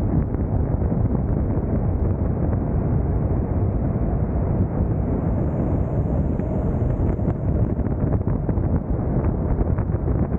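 Steady wind rush buffeting the microphone over the low rumble of a car's tyres and running gear at freeway speed.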